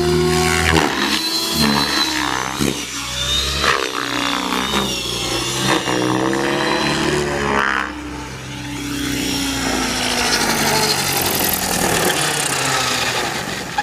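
Electric Align T-Rex 600E RC helicopter flying stunts. The whine of its motor and rotor rises and falls in pitch over and over as it manoeuvres, with a rushing sound from the blades. It dips briefly about eight seconds in.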